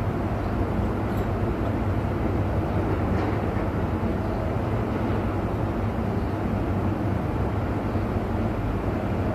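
A large engine running steadily, a continuous low drone with no change in speed.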